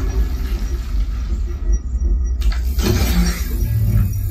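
Dolby Atmos demo soundtrack played loud through a home cinema system with four Definitive Technology DN12 subwoofers. A deep bass rumble carries whooshing effects that thin out about two seconds in and then surge back near the end.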